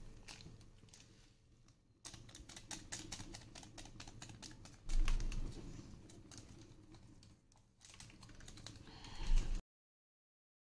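Faint, irregular clicking and crackling around a frying pan of Maggi noodles cooking in a little water, with a couple of soft bumps about five and nine seconds in.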